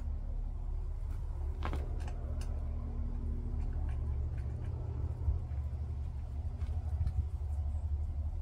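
Wood-Mizer BMS250 bandsaw blade sharpener running with a steady low hum and a few faint clicks. A fainter tone in the hum drops out about three and a half seconds in.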